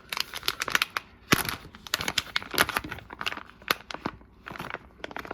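Plastic packaging of a pack of soft-plastic fishing baits crinkling as it is handled, in a quick, irregular run of crackles.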